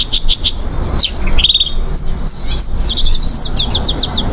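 Long-tailed shrike (cendet) singing a fast, varied song of high chirps. About two seconds in come three clear whistled notes, then a quick run of short repeated notes.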